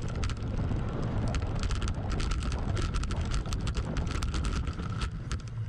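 Voodoo Bizango hardtail mountain bike running fast down a dirt trail: steady tyre and wind noise on the camera microphone, with frequent sharp clicks and rattles as the bike bumps over the ground.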